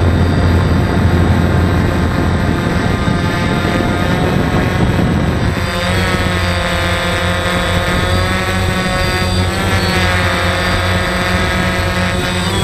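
DJI Phantom quadcopter's motors and propellers whining steadily, heard from a camera mounted on the drone as it descends. The first half carries more rushing noise under the whine; from about halfway through, the pitch wavers up and down as the rotor speeds change.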